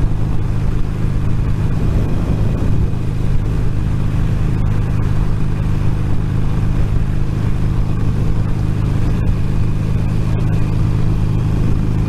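Motorcycle riding at a steady 70 mph on a smooth road surface, heard through a microphone inside the rider's crash helmet: wind and road noise over a steady low engine drone, with no change in speed.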